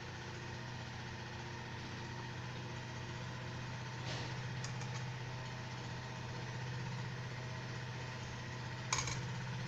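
Dudhi (bottle gourd) koftas sizzling as they deep-fry in medium-hot oil in a steel kadai, a steady frying hiss. A steady low hum runs underneath.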